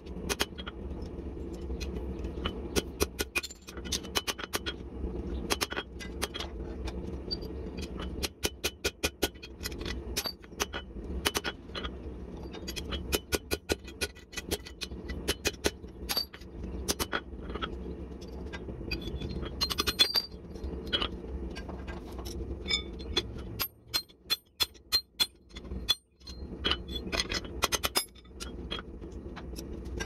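Blacksmith's hand hammer striking hot leaf-spring steel on an anvil, sharp ringing blows in quick runs of several a second with short pauses between, over a steady low hum. The blows stop for a couple of seconds near the end.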